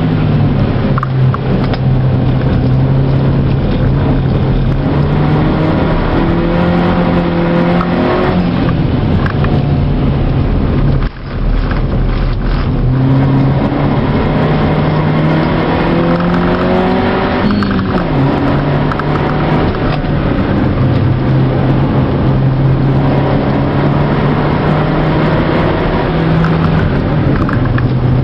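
Mazda2 (Demio) four-cylinder engine heard from inside the cabin on track, its note rising under acceleration and dropping sharply at gear changes, with a brief lift off the throttle about eleven seconds in.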